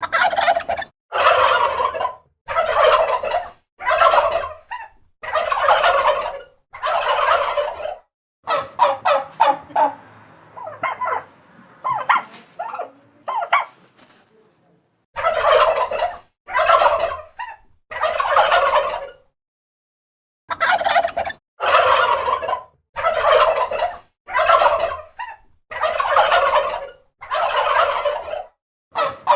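Turkey gobbling: loud calls about a second long, repeated with short gaps. Partway through comes a run of quicker, choppier gobbles, and there is a short pause about two-thirds of the way in.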